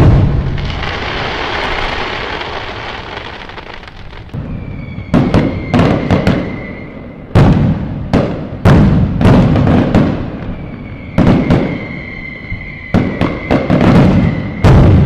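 Fireworks going off: a sharp bang followed by a few seconds of crackling, then a string of loud bangs every second or two. A steady high whistle sounds behind the bangs for several seconds at a time.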